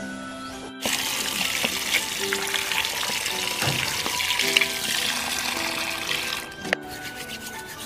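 A stream of water pouring into a steel pot of mud clams, splashing over the shells to wash off the mud. It cuts in about a second in and stops abruptly near the end.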